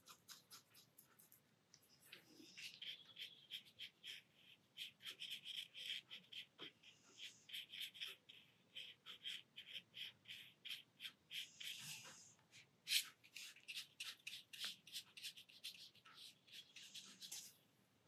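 Paintbrush rubbing and dabbing opaque watercolour onto paper: a fast run of faint short strokes, with one sharper tap about thirteen seconds in.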